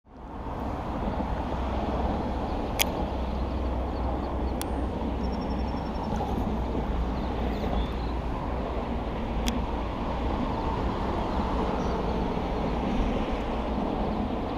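Steady rumble of road traffic, with three sharp clicks a few seconds apart.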